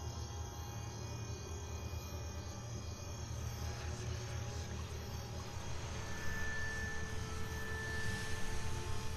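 A low, steady rumbling drone with sustained tones held over it, a high tone joining about six seconds in and the sound swelling near the end.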